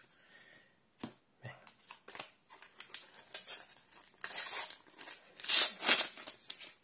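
Stickers being shuffled with light clicks and taps, then a sealed sticker packet's wrapper crinkling and tearing as it is ripped open by hand, in two louder rips past the middle.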